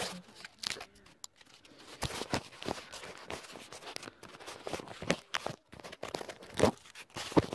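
Handling noise of a phone camera held with a finger over the lens: irregular rubbing, scraping and light knocks against the body, with a few louder bumps.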